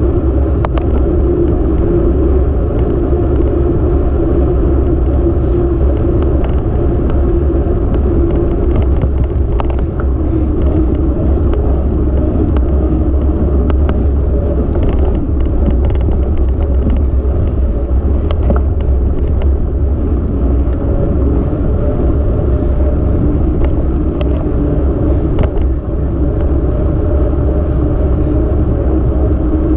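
Steady low rumble of road and wind noise from a camera riding on a moving vehicle, with scattered light knocks.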